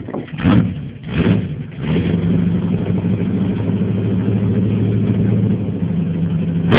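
American big-block V8 engine blipped twice, then held at steady high revs for several seconds, ending in a sharp crack.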